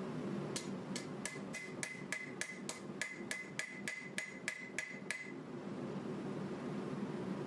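Hand hammer striking a 1095 steel knife bar on an anvil, about sixteen quick ringing blows at about three a second, stopping a little after five seconds in. A steady hiss runs underneath.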